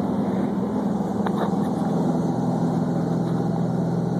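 Steady drone of a twin-engine propeller airplane's engines and propellers in flight, heard from inside the cabin: a constant low hum with no change in pitch.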